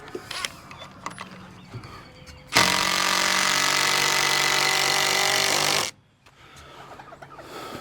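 A power tool runs at a steady speed for about three seconds, then stops abruptly. A few light knocks come before it.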